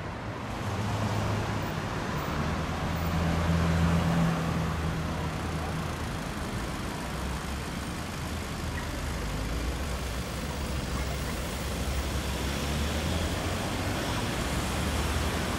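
City street traffic: motor vehicles running past with a low engine hum over tyre and road noise, loudest about four seconds in.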